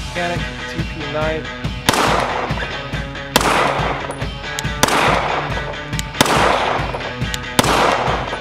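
Five pistol shots from a Canik TP9 9mm, about one and a half seconds apart, over background music.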